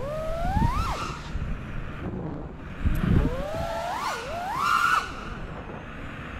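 FPV racing quadcopter's brushless motors whining, the pitch sweeping up and down with the throttle, over a low rush of air. The pitch climbs steadily through the middle, then drops suddenly about five seconds in.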